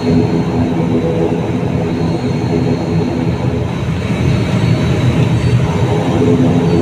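Turboprop airliner's engine and propeller running steadily while the aircraft taxis on the runway, heard from inside the cabin: a dense, even hum with a thin high whine above it.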